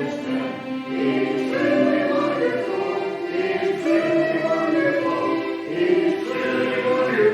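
A church congregation singing a hymn together in sustained, held notes.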